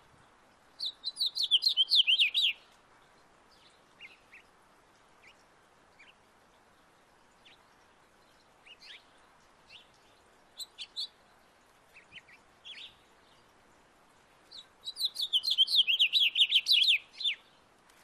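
Male house finch singing: two long, rapid warbling songs, one about a second in and one near the end, with short scattered chirps between.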